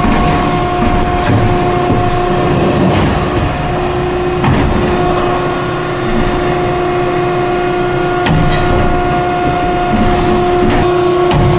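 Hydraulic blow molding machine running through its fast cycle: a steady whine with overtones over a dense mechanical din, the whine shifting in pitch briefly about four seconds in. Short hisses and knocks come now and then as the machine cycles.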